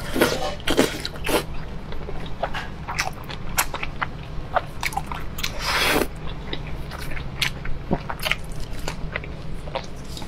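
Close-miked mouth sounds of eating soft braised pork belly: repeated biting and wet chewing with many short smacking clicks, and one longer, louder wet sound about six seconds in.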